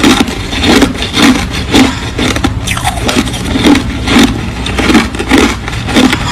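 Close-up chewing of crushed ice: loud, crisp crunches in a steady rhythm, a little under two a second.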